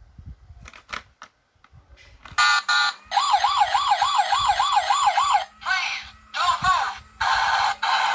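Toy police car's electronic siren: a few faint clicks, then about two seconds in a loud warbling siren rising and falling about four times a second, followed by short chirps and a buzzing tone.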